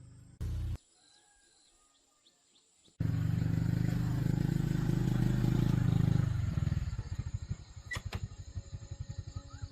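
A diesel engine cuts in suddenly and runs loud and steady, then drops to an idle that pulses at about eight beats a second. Faint birdsong is heard before it.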